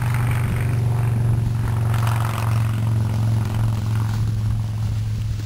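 A steady low mechanical hum, like a running motor or engine, with light scraping and clattering around two seconds in.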